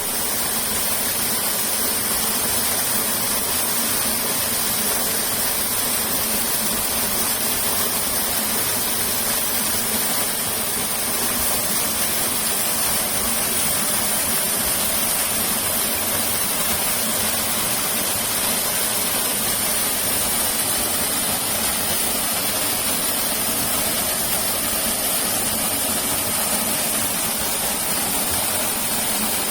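Waterfall pouring into its pool: a steady, unbroken rush of falling water that does not change.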